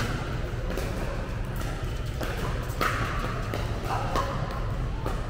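A few sharp pops of pickleball paddles striking plastic balls and balls bouncing on the court, spaced out by seconds, over a steady low hum.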